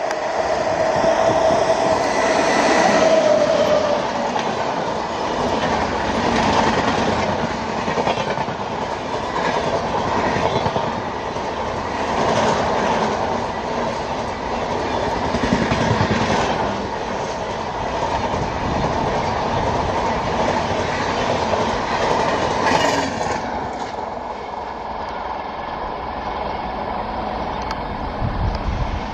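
Express train hauled by a WAP-7 electric locomotive passing at speed: a steady horn note fades out in the first few seconds. The rush of the coaches and the rhythmic clatter of wheels over rail joints follow, easing off about 23 seconds in as the train goes by.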